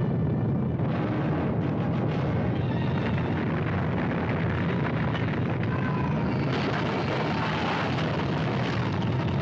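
Deep, continuous rumbling of an earthquake tremor, with faint dramatic music underneath.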